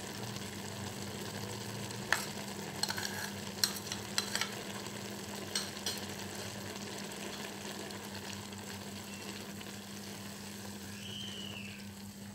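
Minced beef, onion and tomato simmering in water in a karahi, a steady bubbling hiss over a steady low hum. A few light taps come between two and six seconds in.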